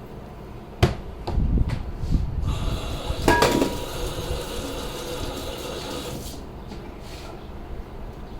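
Kitchen clatter: knocks and thumps of utensils and dishes, with a steady noisy sound for about four seconds in the middle that cuts off suddenly.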